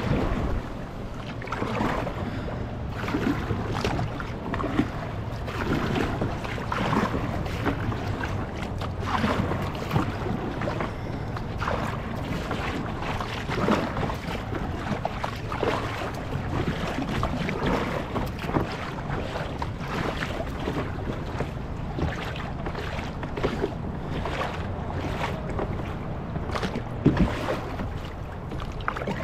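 A kayak on the sea: repeated splashes every second or two as it is worked through the water, over a steady rumble of wind on the microphone.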